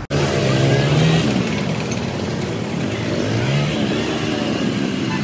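Vehicle engine revving up twice as it pulls away in congested street traffic, over a steady background of road noise.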